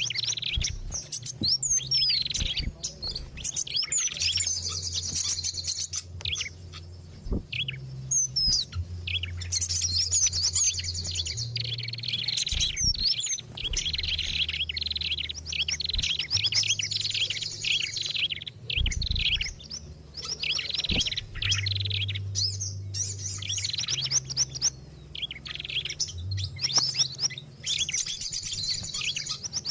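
Busy, overlapping chirping and rapid trills of several small songbirds, a bird-catcher's lure recording ('suara pikat') that mixes the calls of small birds such as pied fantail and tailorbird to draw wild birds in. A low hum runs underneath, shifting in pitch now and then.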